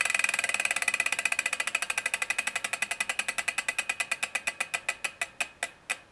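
Koozer XM490 Pro freehub clicking as the wheel coasts down. The clicks come in an even, rapid stream that slows steadily, spacing out to a few a second near the end as the wheel comes to a stop.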